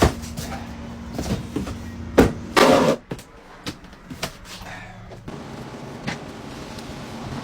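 A cardboard box being closed up by hand: several sharp knocks and a short, loud scraping rustle about two and a half seconds in, with smaller clicks. A low steady hum stops about five seconds in.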